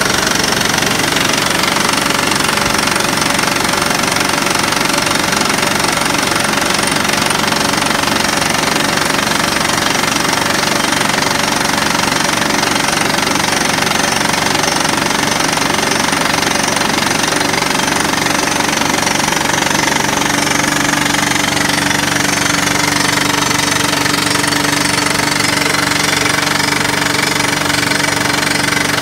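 Ingersoll-Rand ECM-360 crawler rock drill hammering a hole into a boulder: a loud, steady, rapid percussion, with the rig's Cummins diesel engine running under it. A steady low hum joins in about two thirds of the way through.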